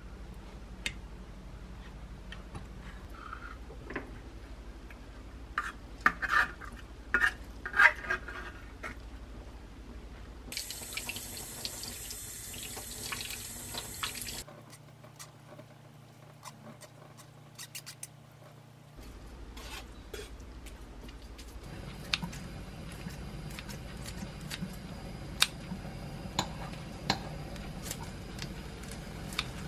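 Pull-tab lid of a tuna can being peeled open with metallic clicks and scrapes. About ten seconds in, a tap runs water over tuna in a wire-mesh sieve for about four seconds, rinsing off the oil. Near the end, kitchen scissors snip kimchi in a frying pan, giving sharp clicks.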